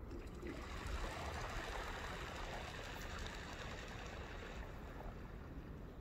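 Steady rushing and splashing of river water over a low rumble; the water noise cuts in about half a second in and stops shortly before the end.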